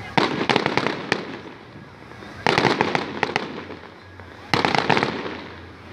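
Aerial fireworks bursting in three volleys, about two seconds apart, each a sharp bang followed by a rapid run of crackles.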